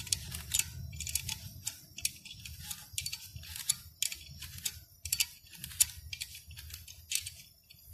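Irregular small metal clicks and ticks, several a second, from a wrench working the adjusting nut on a water pump pressure switch, tightening the range spring to raise the pressure setting. A faint low hum runs underneath.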